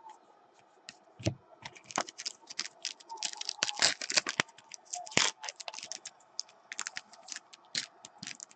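Trading cards being handled and flipped through, with rapid irregular clicks and snaps of card stock, busiest in the middle.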